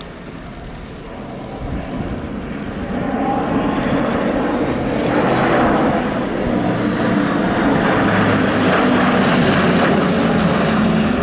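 Airbus A400M's four turboprop engines and propellers, a drone with a low propeller hum that grows louder over the first few seconds as the aircraft comes in, then stays loud and steady.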